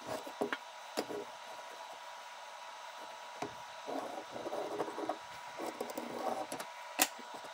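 Handling sounds of a thin metal heart-shaped tin on a wooden block: a few sharp clicks and taps, and scratchy rubbing in the middle stretch as a pencil traces around the tin's edge, over a steady faint hum.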